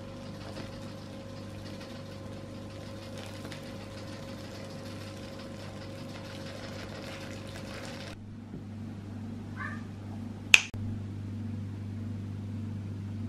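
Hot water pouring in a steady stream into a bowl of raw sweet potato ribbons, a continuous splashing hiss that stops abruptly about eight seconds in. A couple of seconds later comes a single sharp click, the loudest sound.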